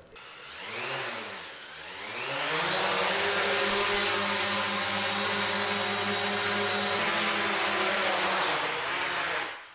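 DJI Mavic Pro quadcopter's four motors and propellers spinning up, wavering in pitch for about two seconds, then running at a steady buzzing pitch. They shut off just before the end.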